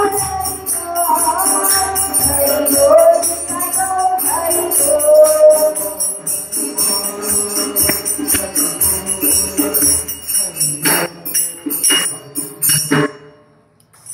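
Hindu temple devotional singing, a group of voices carrying a melody over fast jingling metal percussion. The voices fade after about six seconds while the jingling rhythm carries on. A few louder strokes come near the end before it all stops suddenly.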